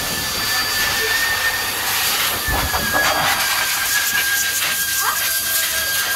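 High-velocity pet dryer blasting water out of a wet dog's coat through its hose: a steady rushing hiss over a high, even motor whine, with a brief low bump about two and a half seconds in.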